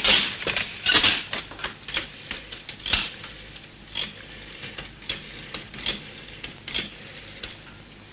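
A black rotary telephone's handset picked up with knocks on the desk, then its dial turned and let run back several times, clicking and ratcheting in short groups with pauses between. The loudest knocks come in the first three seconds, with softer clicks after.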